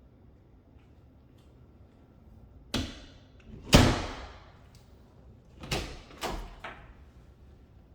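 Storage closet door being opened and shut: a few sudden knocks and bumps, the loudest about halfway through, with two more a couple of seconds later.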